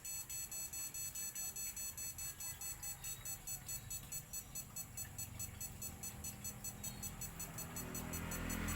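Rapid, evenly repeating electronic beeping, about five or six pulses a second, high-pitched and alarm-like, growing louder and fuller near the end.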